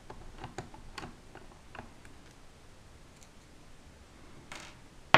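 Small screwdriver turning out a hard-drive cover screw on the underside of a Dell Inspiron 1501 laptop: a run of faint, light clicks in the first two seconds, then a brief rustle near the end.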